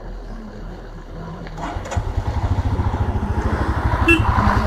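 Motorcycle engine running, quieter at first, then louder with a fast, regular low pulse from about two seconds in.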